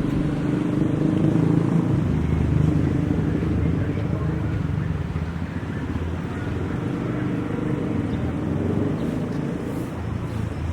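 A motor running steadily with a low rumble.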